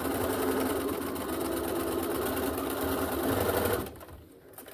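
Bernina sewing machine stitching at a steady speed, stopping suddenly about four seconds in.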